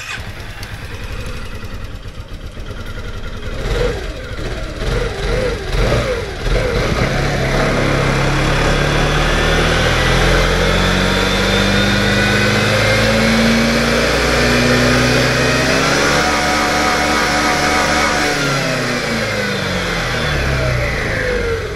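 Honda Forza 250 (MF10) scooter's single-cylinder engine revved hard with the rear wheel spinning free on the centre stand. The throttle is blipped a few times, then held open from about six seconds in with the pitch climbing, and eased off near the end. It is a run toward top speed to check the e-CVT (S-Matic) transmission after its initialization.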